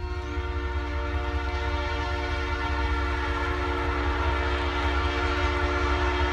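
Diesel locomotive air horn sounding one long, steady blast of several tones together, over a low rumble.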